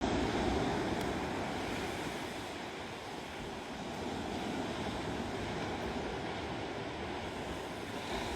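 Ocean surf washing on a beach, a steady rush, with some wind on the microphone.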